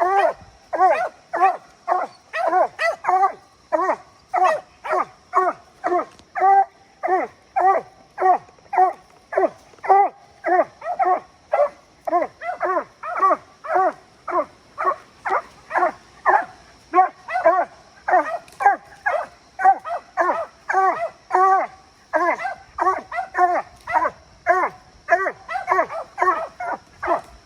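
Treeing Walker coonhound barking steadily at the tree, short barks about two a second without a break: a tree bark, the sign that the dog has a raccoon treed.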